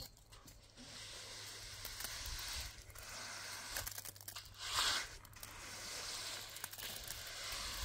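Rustling, crinkling handling noise in several surges, the loudest about five seconds in.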